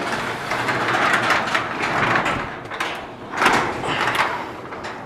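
Jacks and jack stands being pulled out and dragged across a concrete garage floor: a continuous scraping rattle for about three seconds, then two louder scrapes.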